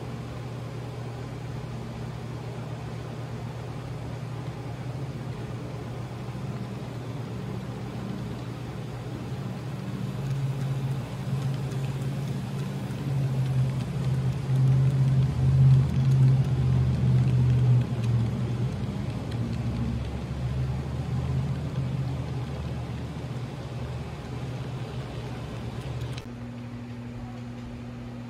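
HO-scale model freight train running past on the layout's track: a steady low hum that swells as the cars roll close by, loudest around the middle, then eases off. About two seconds before the end it drops to a quieter, steady single-tone hum.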